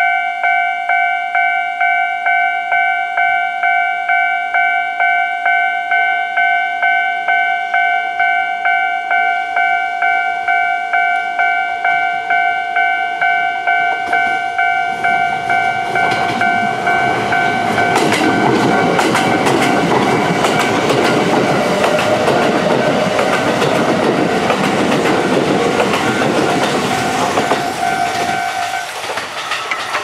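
Japanese level-crossing warning bell ringing in a fast, even, repeating pattern. From about halfway through, a Kintetsu 5800-series and 1201-series electric train approaches and passes close by, its wheels clattering over the rail joints. The bell stops just before the end as the train clears the crossing.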